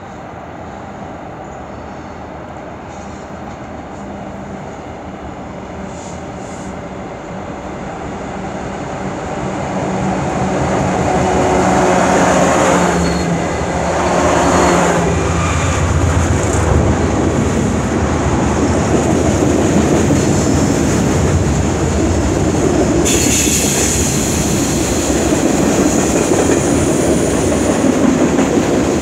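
CN freight train's diesel locomotives approaching and passing, their engine drone growing steadily louder over about twelve seconds, then a line of tank cars rolling by with steady wheel-on-rail noise.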